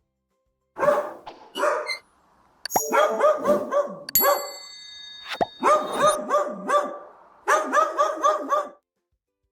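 A dog barking in quick runs of short yaps, about five a second, with brief pauses between the runs. A thin ringing tone sounds behind the barks for a couple of seconds in the middle.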